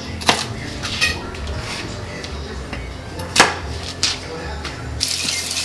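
Chef's knife chopping fresh herbs on a cutting board: about four sharp knocks of the blade hitting the board, with quieter cutting in between. Near the end a steady rushing noise starts.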